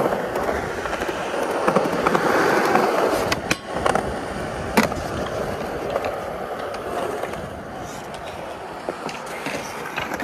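Skateboard wheels rolling on smooth concrete as the skater pushes along, with a few sharp clacks of the board.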